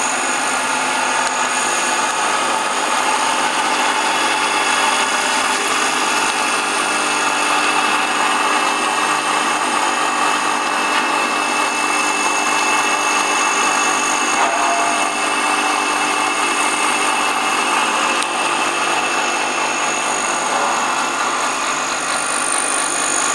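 Stainless-steel colloid mill running steadily while grinding a wet paste: an even, unbroken machine sound with several steady tones over a grinding noise.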